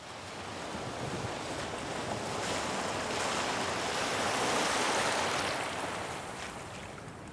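Ocean surf: a wave swelling to a rushing peak about two-thirds of the way through, then washing back near the end.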